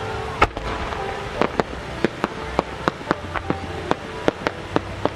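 A 10-inch (size 10) aerial firework shell fired from its mortar with one loud bang, then a rapid string of sharp pops, about four a second, while it climbs with rising side effects.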